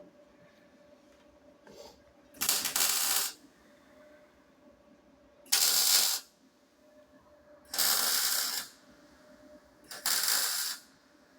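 MIG welder laying four short tack welds on 1 mm steel sheet, each a burst of arc noise lasting under a second, a couple of seconds apart.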